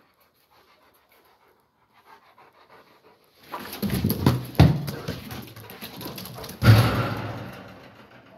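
A dog panting softly, then from about three and a half seconds in, loud close scuffling and handling noise on the phone with a low rumble. Two sharp knocks come in the loud stretch before it fades near the end.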